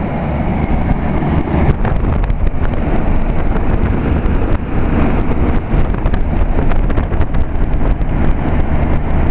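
Circa-1970s General Electric central air-conditioner condensing unit running steadily: mostly condenser fan noise and air buffeting, with a low hum and the shakes and rattles of an aged cabinet. Its reciprocating compressor is very quiet beneath the fan.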